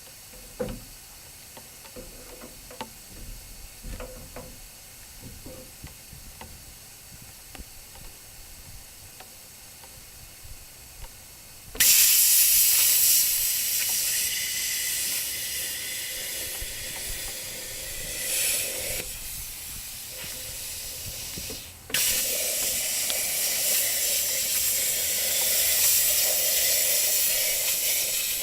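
Hypertherm Powermax 30 plasma cutter cutting into a scrap AC compressor's steel shell: a few light clicks and knocks, then about twelve seconds in a loud hissing cut starts suddenly, runs for about ten seconds, stops briefly and starts again.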